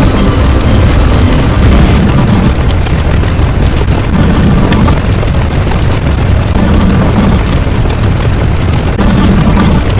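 A dense, loud wall of layered sound effects with a heavy low rumble, steady and unbroken like a long run of explosions.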